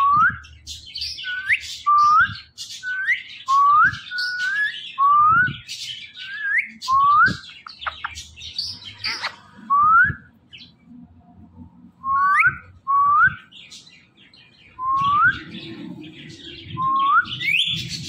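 Indian ringneck parakeets calling: a string of short whistled notes, each sweeping upward in pitch, about one a second with a couple of short pauses, mixed with scratchier high chatter.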